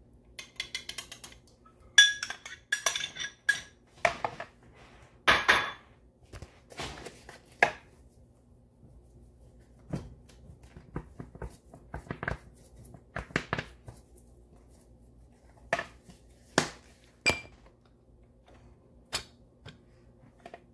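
Kitchen bowls and utensils clinking and clattering: a glass bowl and a spoon knocking against a ceramic mixing bowl and a spice jar being handled over it, in irregular clicks with a few short rattles.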